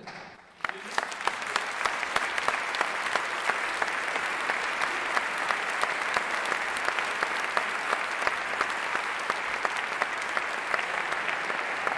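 Large audience applauding: many hands clapping, breaking out suddenly just under a second in and then holding steady.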